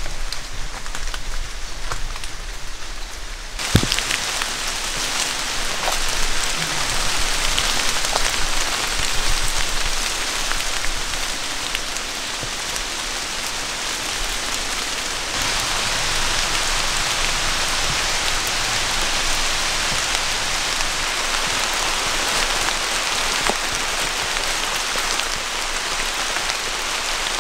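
Steady rain falling: a dense hiss with many fine drop ticks scattered through it. There is a single sharp tap about four seconds in, where the hiss gets fuller, and it brightens again about halfway through.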